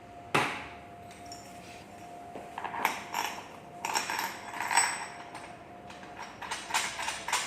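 Hairdryer parts being handled and fitted together: one sharp knock about half a second in, then bursts of clicks and knocks, over a faint steady hum.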